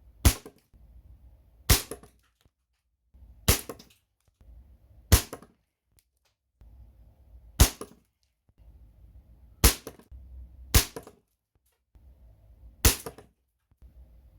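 Gamo Magnum Replay .22 air rifle shots: eight sharp cracks, one every one to two and a half seconds, as heavyweight pure-lead pellets are fired into a brass padlock.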